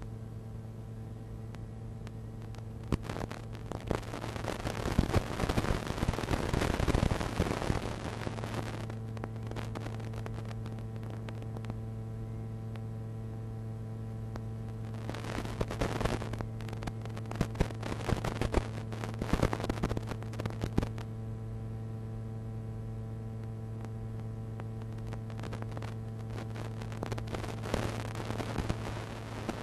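Steady electrical buzz with a stack of overtones, unchanging in pitch, from an analog FPV video receiver's recorded audio channel. Bouts of crackling static come in about three seconds in, again around the middle, and near the end, where the video signal breaks up.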